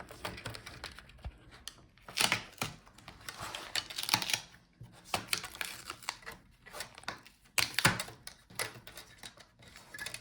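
Plastic front bezel of a laptop screen being pried loose: an irregular run of sharp plastic clicks and short scraping, creaking noises as it comes away from its clips and adhesive.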